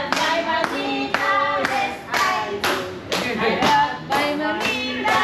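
People singing while clapping their hands in time, about two claps a second.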